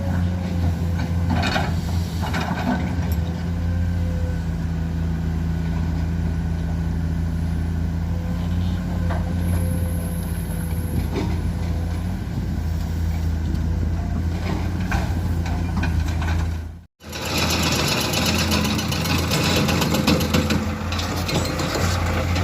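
Heavy diesel construction machinery running steadily: a deep engine drone with occasional knocks. The sound drops out for an instant about 17 seconds in, then returns with more clatter.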